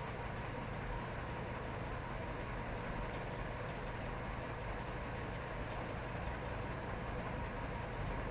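A steady, unchanging hum and hiss with a few faint held tones in it, and no separate events.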